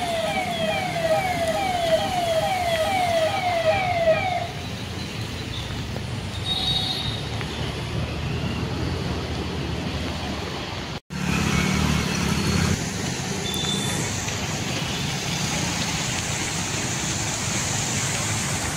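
An electronic siren-like wail repeats a quick falling tone two or three times a second for the first four seconds or so. Under it and after it runs steady traffic noise of motorcycles and cars driving through floodwater. The sound cuts out for an instant about eleven seconds in.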